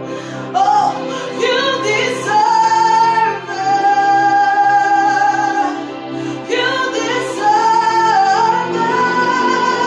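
Gospel worship music: a woman sings slow phrases of long held notes over a steady instrumental accompaniment, with a new phrase starting about one and a half seconds in and another about six and a half seconds in.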